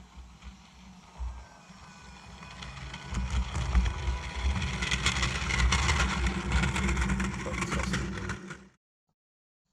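A garden-railway model train running along the track and getting louder as it comes closer, with many small clicks of wheels over the rails. The sound cuts off suddenly near the end.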